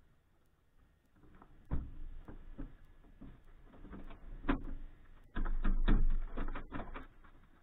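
Clicks, knocks and rustling as a pilot moves about and handles things in a small aircraft's cabin with the engine off. Heavier thumps come about two seconds in and again from about five and a half to six seconds.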